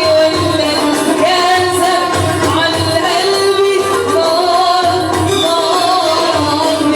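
A woman singing an Arabic song in long, wavering held notes over instrumental backing with a steady drum beat.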